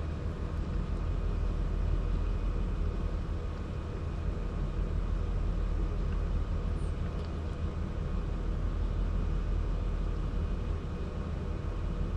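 Steady low rumble with a faint even hiss above it and no distinct events.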